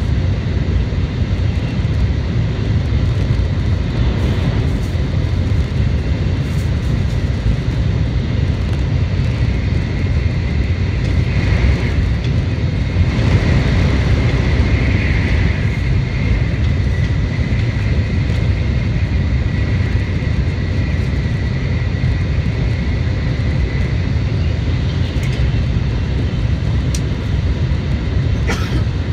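Cabin noise of a JR West N700A Shinkansen running on the line: a loud, steady low rumble of wheels, running gear and air. A thin high whine comes in for a while midway.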